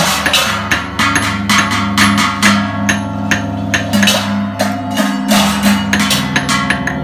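Hanging Balinese gongs struck with padded mallets, their deep tones humming steadily and shifting pitch about five seconds in, under sharp metallic strikes that come several times a second.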